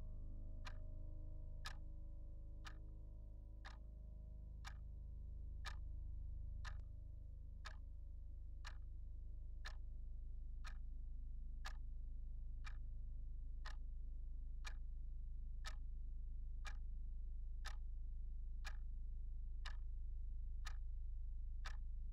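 A clock ticking steadily, about one tick a second, over a low sustained drone.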